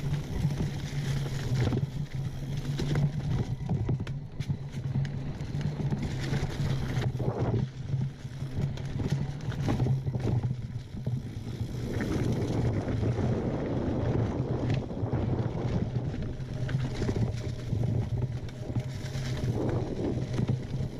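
Mountain bike rolling along a dirt singletrack: tyre noise over dirt and leaves with frequent knocks and rattles from bumps, under a steady low hum. The rushing gets denser about halfway through.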